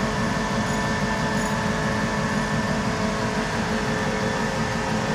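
Diesel locomotive standing and idling steadily: a low engine rumble with a few constant whining tones above it.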